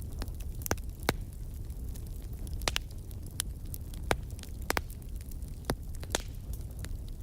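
Wood fire burning in a fireplace: a steady low rumble of the flames with sharp, irregular crackles and pops from the burning logs, several in a few seconds.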